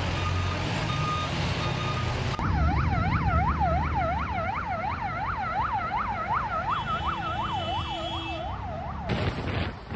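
Ambulance reversing beeps over engine and street noise, then a switch to an ambulance siren in a fast up-and-down yelp, about two sweeps a second, which cuts off shortly before the end.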